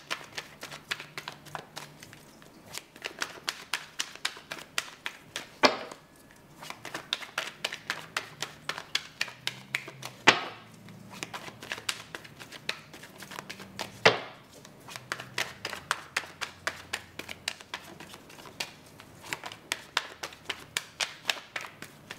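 Tarot deck being shuffled overhand by hand: a quick, uneven run of card-on-card clicks and flicks, broken by three louder slaps.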